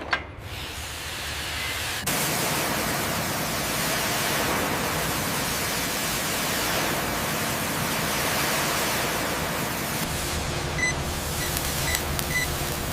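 Steady, loud hiss that steps up about two seconds in and then holds even.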